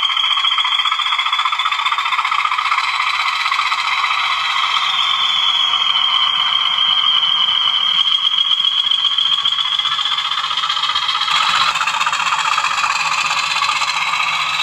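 DCC sound-fitted Class 20 model diesel locomotive running on the track, its sound decoder playing a diesel engine with a high whistle that slowly wavers in pitch. The sound changes about eleven seconds in.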